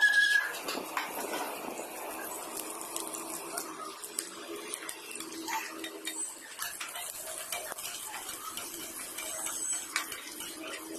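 Sliced onions and green chillies sizzling in oil in a non-stick wok, with a spatula scraping and tapping against the pan as they are stirred. A short, loud, high squeak right at the start.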